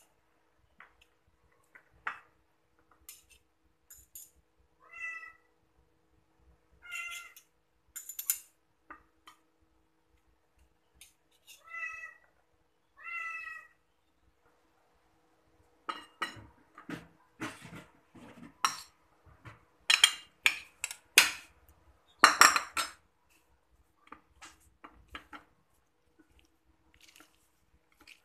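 A cat meowing four times in short calls, two close pairs, while a metal spoon and fork clink and scrape against ceramic plates. The clinking turns into a busier, louder run of clatter past the middle.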